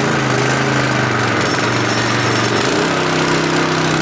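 Small single-cylinder gas go-kart engine running steadily. Its speed rises a little about three seconds in.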